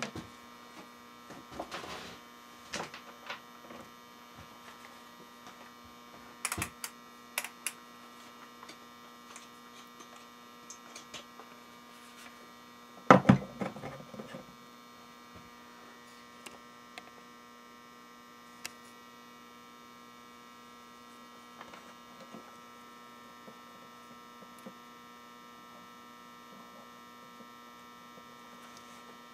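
Steady electrical mains hum made of several held tones, with scattered light clicks and knocks from test leads, wires and a multimeter being handled on a workbench. The loudest is a knock about thirteen seconds in.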